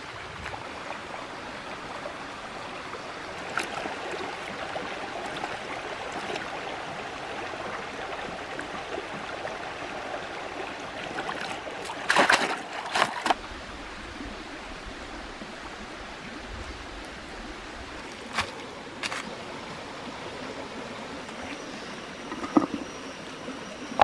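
Shallow stream running steadily over rocks. About halfway through comes a short spell of loud splashing as a woven basket of mushrooms is dipped and shaken in the water, and a few sharp knocks follow later.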